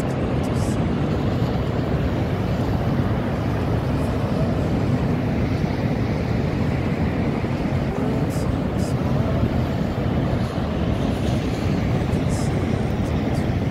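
Niagara Falls, a steady, loud rush of falling water, heaviest in the low end and unbroken throughout.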